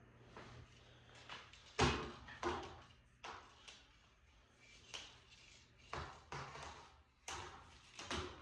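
A series of irregular knocks and clunks, about a dozen, from hard parts being handled and set down, the loudest about two seconds in.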